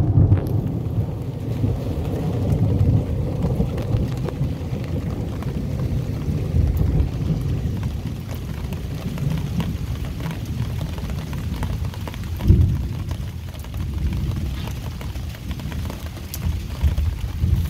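Heavy rain falling in a thunderstorm, with thunder rumbling low and steady throughout and a brief louder boom of thunder about twelve seconds in.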